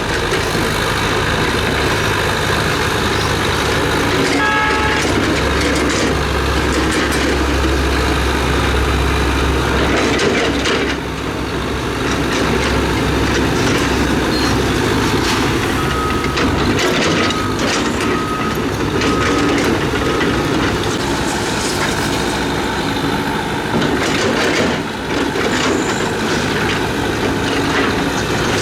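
Heavy tracked construction machinery working: diesel engines running steadily under load, with the clanking clatter of steel tracks. Partway through, a reversing alarm beeps about five times in a row.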